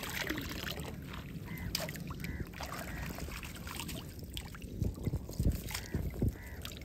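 Water splashing and net mesh rustling as a cylindrical net fish trap is handled and shaken out in shallow sea water, with a few louder splashes or knocks about five seconds in.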